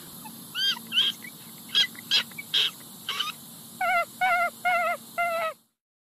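Common raccoon calling: a run of short, high chirps, then four wavering cries in quick succession near the end.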